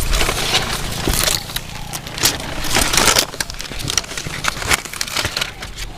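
Irregular rustling and crackling noises with scattered sharp clicks, louder for a moment about two to three seconds in.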